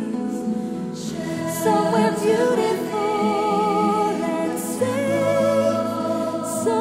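Choral music: a choir singing slow, held notes with vibrato over steady low accompaniment.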